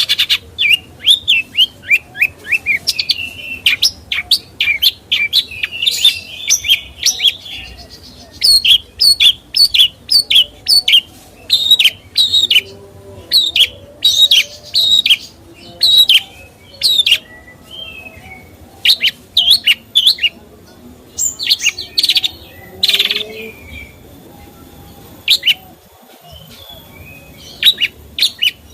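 A songbird singing a rapid, chattering series of short, sharp chirps, in bursts broken by brief pauses.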